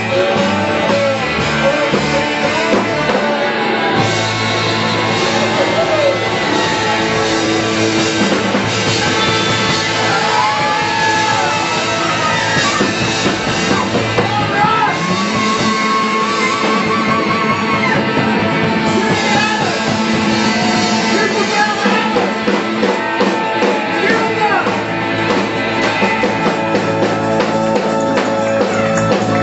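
Live rock band playing, with electric guitar and voices singing into the microphones.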